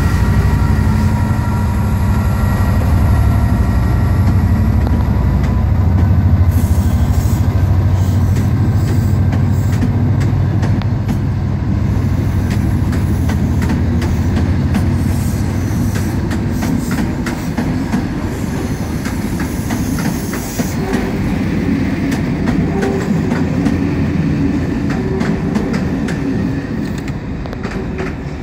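Class 67 diesel locomotive's EMD two-stroke V12 drone fading as it pulls away. Its sleeper coaches then roll past, wheels clicking over rail joints, and the rumble dies away near the end.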